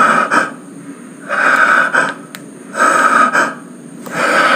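A person breathing loudly close to the microphone: four hissing breaths, evenly spaced about a second and a half apart.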